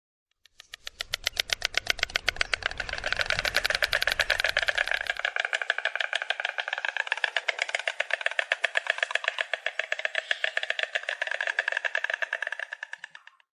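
Stork clattering its bill: a long, rapid run of wooden-sounding clicks that builds up about half a second in and fades away near the end, with a low rumble underneath for the first few seconds.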